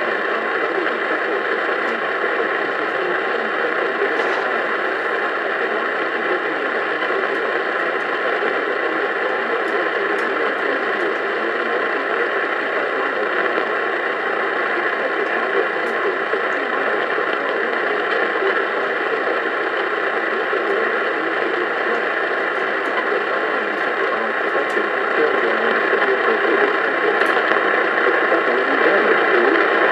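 NOAA weather radio receiver hissing with steady static through its small speaker, with no voice or alert tones on the channel. The hiss gets a little louder near the end.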